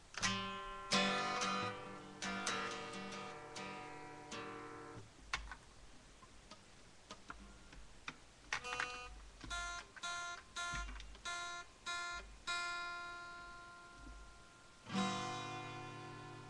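Acoustic guitar played by hand: a run of strummed chords for about five seconds, then single picked notes, then one more strummed chord near the end, left to ring.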